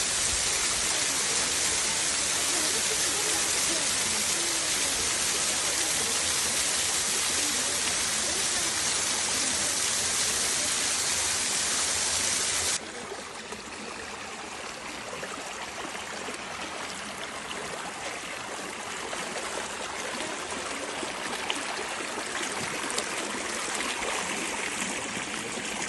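Rushing stream water, loud and steady. About halfway through it cuts suddenly to quieter flowing water, with a few faint ticks.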